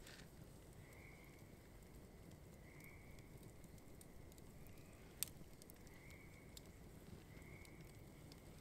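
Near silence with a wood campfire's faint crackling pops, one sharper pop about five seconds in. A faint short high note repeats every second or two.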